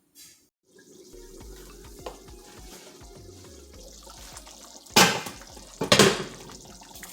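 Lamb stew, thickened with a cornstarch slurry, simmering in the pot with a steady bubbling hiss. Two loud metal clanks against the pot come about five and six seconds in.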